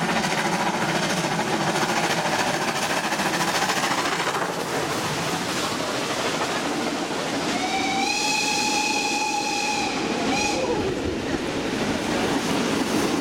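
Steam train with locomotives 70 083 and 41 018 passing close by, a steady loud run of exhaust and rolling noise. About eight seconds in, a steam whistle blows for about two and a half seconds, followed by a short second toot.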